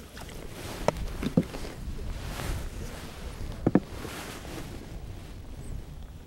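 Wind rumbling on the microphone over quiet open-air background, with a few light knocks about one second, one and a half seconds, and nearly four seconds in.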